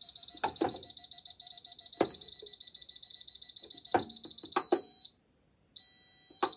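Four-zone conventional fire panel's internal buzzer sounding a steady high-pitched tone with a fast flutter, with several clicks of its keypad buttons being pressed as the access code is entered for test mode. About five seconds in the buzzer cuts off, then comes back as a shorter steady tone.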